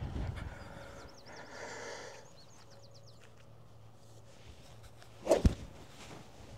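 A 7-wood striking a golf ball off the fairway turf once, with a sharp crack about five seconds in.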